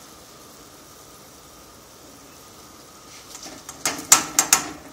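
Washed rice being tipped from a bowl into a pot of boiling tomato stew: a quick burst of sharp clatters and splashes lasting about a second and a half, starting about three seconds in, over a low steady background noise.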